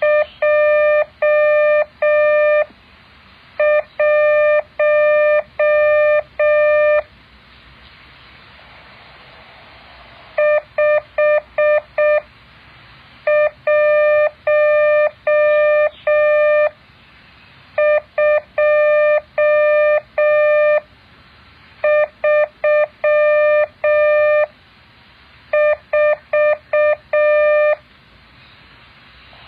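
Morse code practice tones: a single steady mid-pitched beep keyed in dots and dashes, sent as seven groups of characters a few seconds long with pauses of about a second between them, faint hiss in the gaps.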